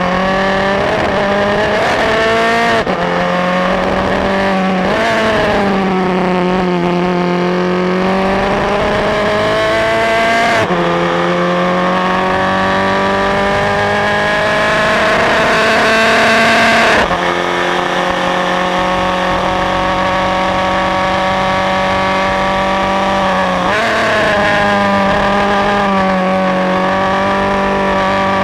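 Onboard sound of a Formula Ford race car's four-cylinder engine at racing speed, its pitch climbing steadily and breaking off several times at gear changes. It peaks and then drops suddenly about two-thirds of the way through before climbing again.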